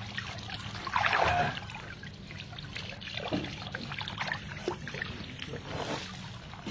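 Shallow water in an inflatable kiddie pool splashing and trickling as a toddler moves in it and water pours from a small toy in her hands, with irregular small splashes and a louder moment about a second in.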